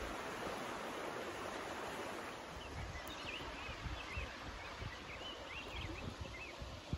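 River water rushing over a shallow gravel riffle, easing a little about two seconds in. From about three seconds in, a bird sings a run of short, high chirps over the flowing water.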